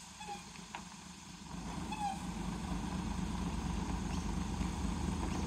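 Mobile crane's truck engine picking up speed about a second and a half in, then running steadily.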